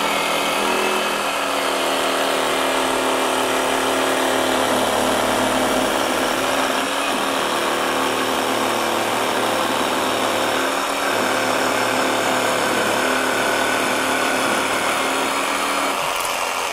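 SKIL PWRCore 12V brushless jigsaw running a metal-cutting blade with the orbital action off, sawing steadily through lubricated 3/16-inch aluminum diamond plate. The cutting stops near the end.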